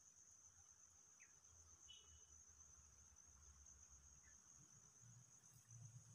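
Faint insects trilling in one steady, high, unbroken band, with a few short chirps and a low rumble coming up near the end.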